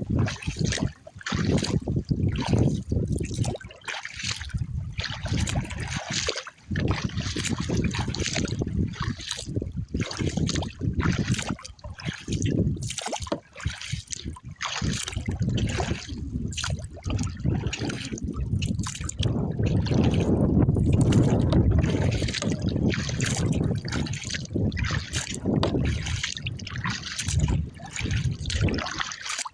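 Choppy lake water splashing and trickling against a kayak, with wind buffeting the microphone as an uneven low rumble that swells about two-thirds of the way through.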